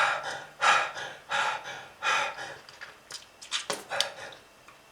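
A smoker hacking and coughing: a run of about seven harsh, breathy coughs at irregular intervals, with gasping breaths between them.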